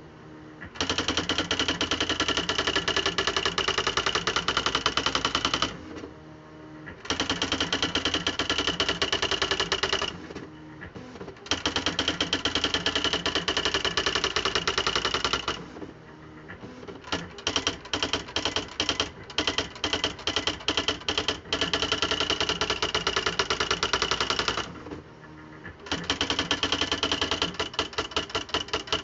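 Smith Corona Display Dictionary electric typewriter printing in long runs of rapid, even key strikes, broken by short pauses. In the middle stretch the strikes come more slowly, one by one, and a steady motor hum carries on through each pause.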